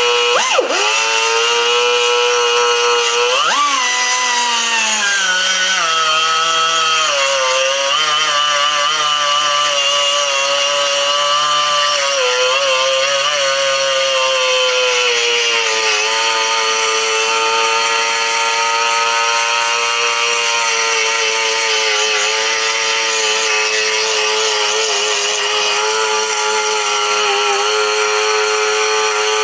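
Die grinder running at high speed with a small cone-shaped bit, grinding the edges of a Briggs & Stratton engine block's cut-down cooling fins. Its whine dips and wavers in pitch as the bit is pressed into the metal, and settles steadier in the second half.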